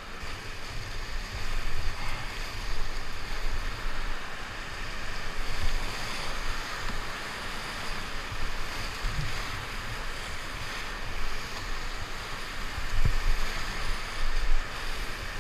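Steady rushing roar of big whitewater rapids on a river in high flow, heard from a canoe running through them, with a few low thumps now and then.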